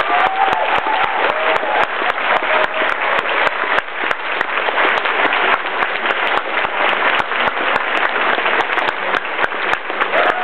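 Large audience applauding, with sharp individual claps close by standing out of the crowd's clapping. A couple of brief calls from the crowd come in the first two seconds.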